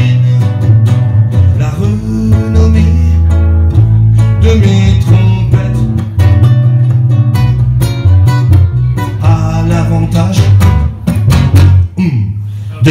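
Live band playing: a prominent bass guitar line moving under plucked and strummed guitar, dipping briefly near the end.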